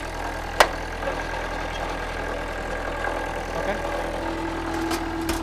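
Wood-Mizer LT-40 portable sawmill's engine running steadily. There is a sharp click about half a second in, and a steady higher hum joins about four seconds in.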